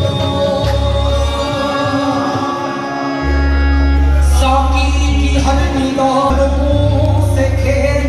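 Live qawwali: a male lead singer sings a drawn-out melodic line over sustained harmonium chords, with low bass notes shifting underneath.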